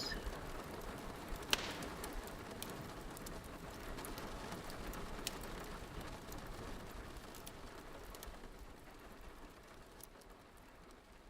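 Crackling fireplace ambience: a steady hiss dotted with small pops and crackles, one louder pop about a second and a half in, slowly fading out toward the end.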